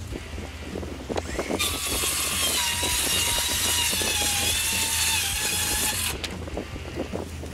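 RIDGID Gen5X R8652 brushed-motor cordless 7-1/4-inch circular saw spinning up about a second in, then cutting through 7/16-inch OSB with a loud steady whine. It stops abruptly about six seconds in.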